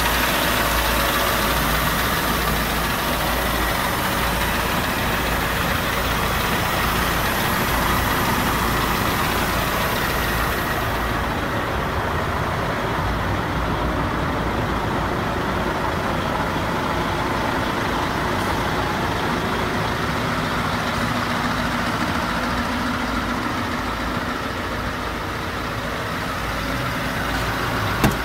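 Scania R580's 16-litre V8 diesel idling steadily. A high hiss over the engine fades out about eleven seconds in, and there is one short sharp click near the end.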